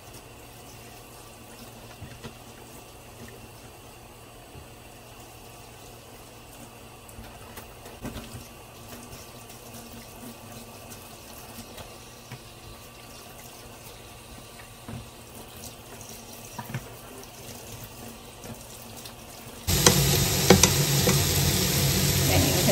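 Tap water running steadily into a stainless-steel sink while greens are rinsed by hand in a plastic colander, with a few light knocks. Near the end, loud sizzling of pork and lemongrass stir-frying in a pan as it is stirred with chopsticks.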